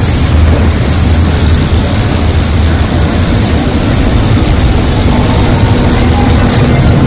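Steady loud rushing noise with a low hum underneath, unbroken throughout, like a roar of wind or machinery.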